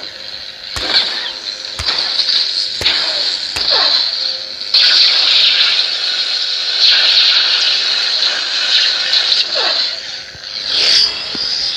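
Sabermach Dark Storm lightsaber's sound board playing through its built-in speaker: a hissing hum with several sharp clash hits in the first four seconds. A louder steady hiss follows from about five seconds in, eases off near ten seconds, then surges again near the end.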